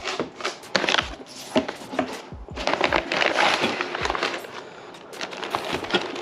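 Cardboard box and packing material being handled and opened: irregular rustling and scraping with scattered knocks and clicks, busiest about three seconds in.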